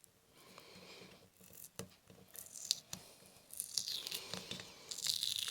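Silver tape being peeled off a glued pottery repair: a quiet scratchy, tearing rasp that grows louder in the second half, with small sharp ticks.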